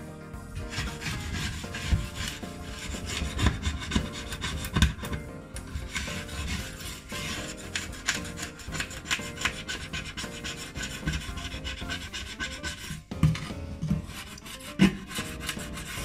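Scrubbing and scraping strokes on the glass top of a ceramic hob, working off baked-on residue. The strokes are irregular and come one after another, with a few harder ones standing out.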